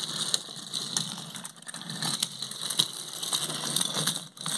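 Trackmaster push-along Gordon toy engine and tender pushed by hand along curved wooden railway track, the wheels rolling with a continuous clicking rattle.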